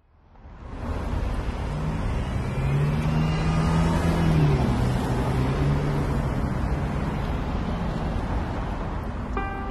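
City street traffic noise fading in over the first second: a steady low rumble with a motor vehicle passing, its engine note rising and then falling a few seconds in. Music with clear pitched notes begins just at the end.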